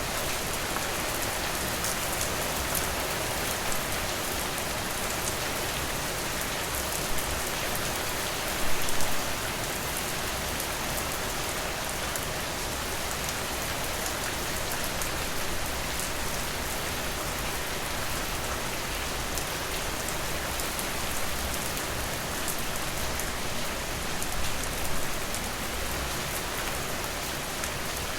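Steady rain falling, with fine drop ticks through it. A brief louder spell about nine seconds in.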